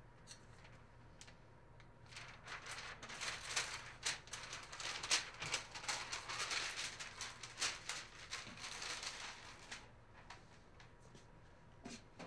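A long sheet of paper being handled and folded, rustling and crinkling in irregular bursts for about eight seconds, then dying down. A single sharp knock near the end.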